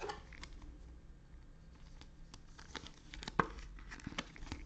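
Light clicks and rustles of trading cards being handled and slid over one another, with a sharper click a little over three seconds in.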